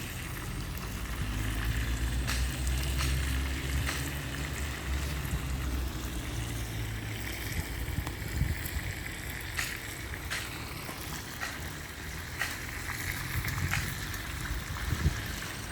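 Wood fire crackling under a cooking pot, with irregular sharp pops and a steady hiss. Wind buffets the microphone with a low rumble, heaviest in the first half.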